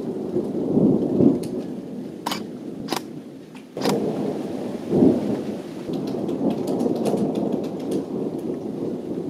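Thunderstorm: thunder rumbling in several swells over steady rain. A few sharp clicks come between two and four seconds in, followed by a sudden surge in the rumble.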